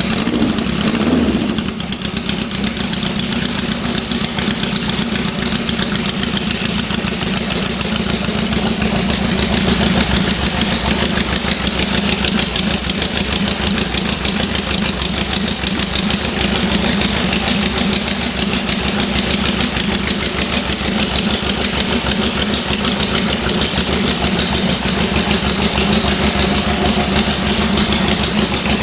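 Honda CB750F Super Sport's air-cooled inline-four just started and idling steadily, with a short rise in engine speed about a second in.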